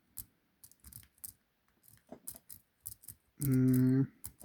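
Lock-pick S-rake working the pin stack of a laminated padlock under light tension: scattered small metallic clicks and scrapes. About three and a half seconds in, a short steady-pitched hum, a person's "hmm".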